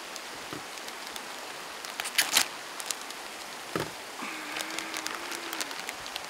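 Paper wrapping and a plastic bag crinkling and rustling in the hands as a package is unwrapped, in scattered sharp crackles, loudest about two seconds in. Underneath, the steady rush of a mountain stream.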